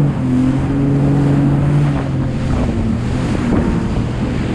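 Jet ski engine running at speed, a steady drone whose note drops slightly about two seconds in, with wind buffeting the microphone and water rushing past the hull.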